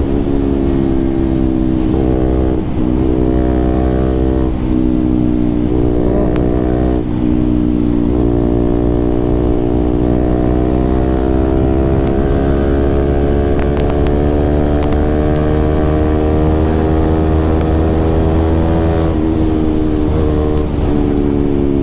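KTM RC 200's single-cylinder engine running hard through an aftermarket full-system SC Project-style exhaust while riding at speed. Its pitch dips and jumps several times in the first seven seconds, then climbs slowly for about ten seconds.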